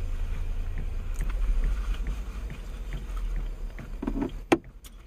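Steady low rumble inside a pickup truck's cab, with faint small ticks. A single sharp click comes about four and a half seconds in, after which the rumble fades.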